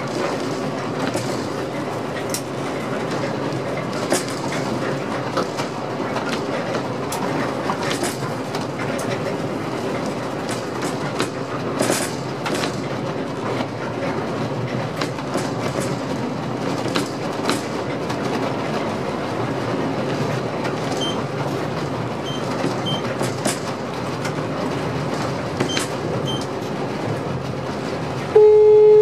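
Passenger train running on the line, heard from inside the driver's cab: a steady rumble of wheels on rail with scattered clicks. Near the end a loud, steady electronic beep sounds for under a second.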